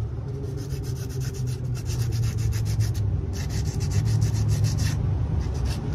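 Hand sanding with coarse 80–100 grit sandpaper on a garden statue's peeling painted surface: rapid back-and-forth scratchy rubbing strokes, with a short pause about three seconds in.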